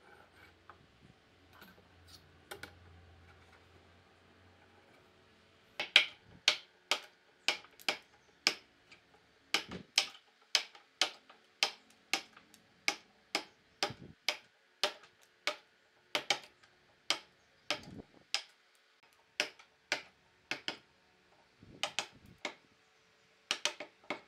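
After a few quiet seconds, a wood chisel starts cutting into the edge of a wooden slab, each stroke giving a sharp crack, about two a second.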